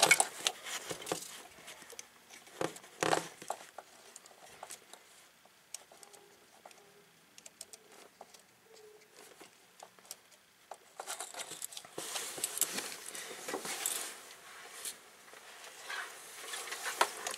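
Hands handling wiring in a car's engine bay: scattered small clicks, taps and rustling, with a longer stretch of scratchy rustling from about eleven to fifteen seconds in.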